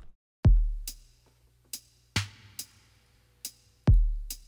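Background music: a slow, sparse electronic drum beat, with a deep bass hit about half a second in and another near the end, and lighter sharp hits between them.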